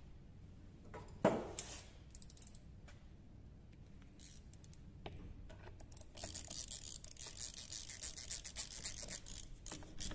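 A sharp click about a second in. From about six seconds on, a rapid scratchy rubbing and ticking as a long screwdriver turns the screw that holds the plastic air filter cover on the auger's engine.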